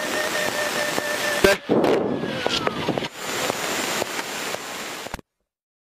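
Cockpit audio of a Cessna 152 making a forced landing after engine failure: steady cabin noise, then a sharp bang about one and a half seconds in, followed by a jolting stretch of knocks and clicks with a tone sliding down in pitch as the aircraft touches down on rough ground. The recording cuts off abruptly near the end.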